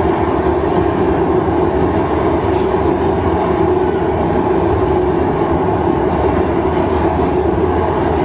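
Steady roar of a glassblowing workshop's gas-fired furnace and reheating burners, a constant deep rushing noise with no breaks.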